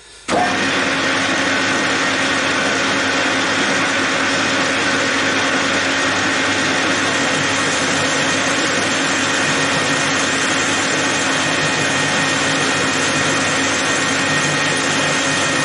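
Metal lathe switched on about a third of a second in, then running at a steady speed with its spindle turning a large workpiece in the chuck: a loud, even mechanical drone with fixed tones from the motor and gearing.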